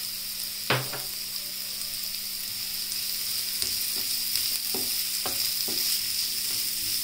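Chopped vegetables sizzling in a hot nonstick frying pan, stirred with a wooden spatula that knocks and scrapes against the pan several times, loudest about a second in.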